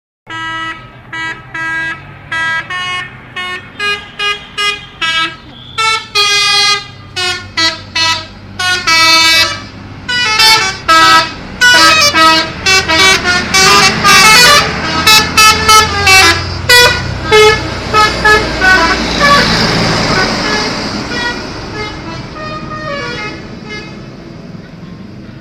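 Bus telolet horn, a set of musical multi-tone air horns, playing a quick tune of short toots at many different pitches, loudest about halfway through. After that the bus's engine and road noise take over and fade away.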